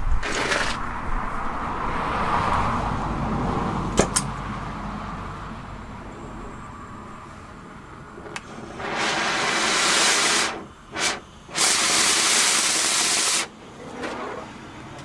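Oxy-acetylene cutting torch: a sharp pop right at the start, the lit flame hissing and fading, then two loud rushing hisses of about two seconds each, a little past the middle and near the end.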